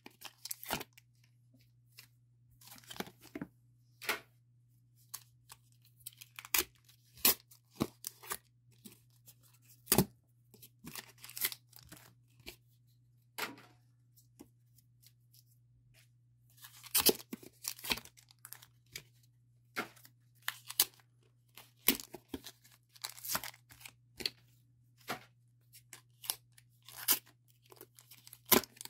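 Pokémon card blister packs being torn open by hand: the cardboard backing ripping and crinkling in short, irregular bursts with quiet gaps between.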